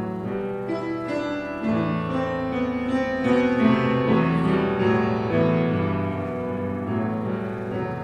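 Piano playing the slow introduction to a classical romance: held chords under a melody, swelling louder in the middle and easing off near the end.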